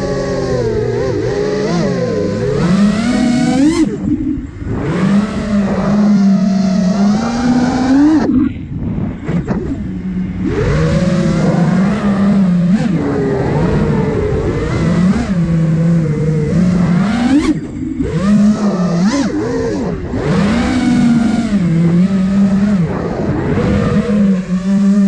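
Brushless motors and propellers of a 5-inch FPV freestyle quadcopter (iFlight Nazgul Evoque F5) whining, the pitch rising and falling with the throttle. The sound drops away briefly several times where the throttle is cut, the longest about eight seconds in.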